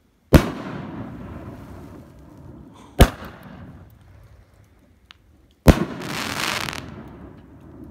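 Firework cake shells bursting overhead: three sharp bangs a couple of seconds apart, each trailing off in a rolling echo. A hiss lasting about a second follows the third burst.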